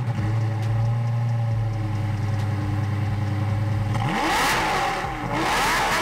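Lamborghini V10 engine idling steadily just after start-up, then revved twice in the last two seconds, the pitch climbing and falling with each blip.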